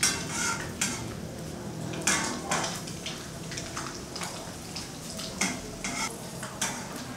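A cooking utensil stirring and scraping in a pan on the stove, with irregular clinks and scrapes against the metal over a light sizzle of frying food.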